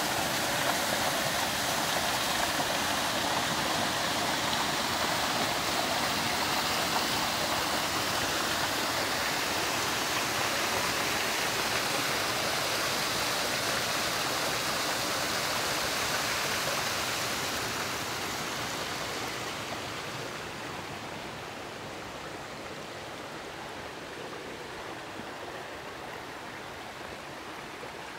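Rushing water of a mountain stream tumbling over rocks, a steady, dense hiss. About two-thirds of the way in it grows fainter and duller, then holds at that lower level.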